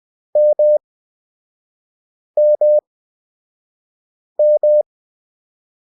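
Morse code practice tone sent with Farnsworth timing: three single characters about two seconds apart, each a quick run of short and long beeps at one steady mid pitch, with silence between characters.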